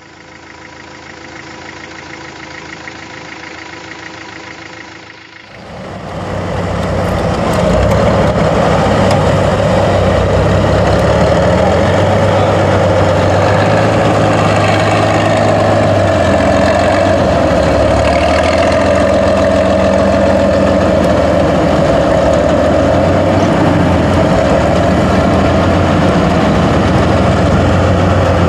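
A heavy 8x8 trial truck's diesel engine runs loud and steady as the truck crawls over loose dirt. For the first five seconds there is a quieter, thinner-sounding sound instead, which cuts over to the engine about five and a half seconds in.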